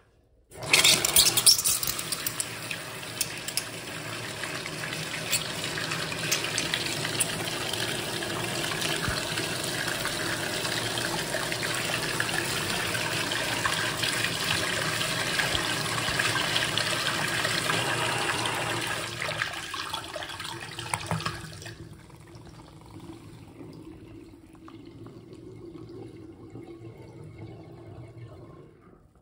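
Overpowered flush of a miniature Saxonette toilet bowl: water rushes in suddenly about half a second in, churning and foaming over the rim and splashing into the sink below. About twenty seconds in it drops to a quieter run of water, which stops near the end.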